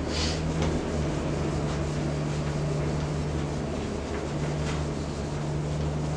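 Steady low mechanical hum, with a few faint swishes of a whiteboard eraser wiping the board.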